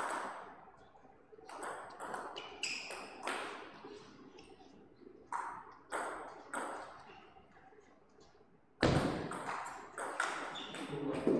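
Table tennis ball clicking off rackets and the table in a series of sharp pings during a rally. About nine seconds in there is a louder thump, followed by a few more ball clicks.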